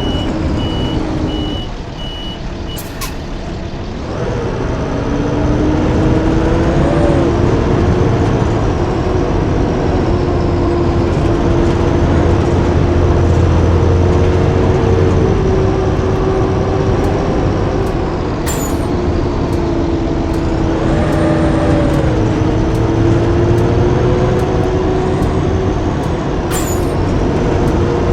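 Blue Bird school bus running and under way: its engine and drivetrain drone with a steady whine, which drops briefly about two to four seconds in and then holds. Three short sharp clicks come at intervals.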